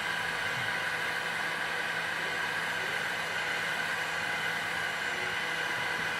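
Heat gun set to 300 °C blowing hot air steadily, a constant hiss with a high tone in it, while reflowing a graphics card's GPU chip.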